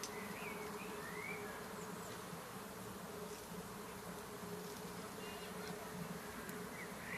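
A steady low buzzing hum, with a few faint high chirps about a second in.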